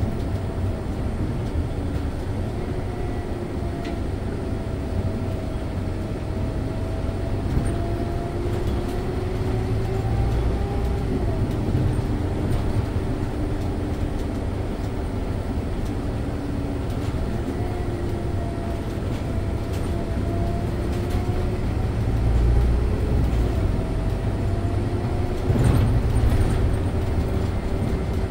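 Scania OmniLink city bus under way, heard from the driver's seat: steady low drivetrain and road rumble with a whine that drifts slowly up and down in pitch as the bus speeds up and eases off. A single knock near the end.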